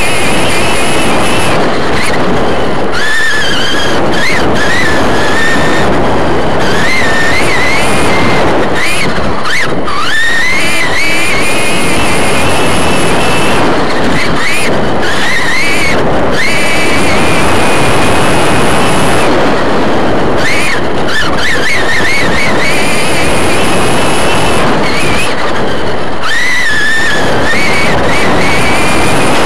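Onboard sound of a modified-class RC short course truck racing on dirt: the motor's high whine rises and falls repeatedly with the throttle through corners and straights, over a heavy rush of wind and dirt noise on the truck-mounted camera.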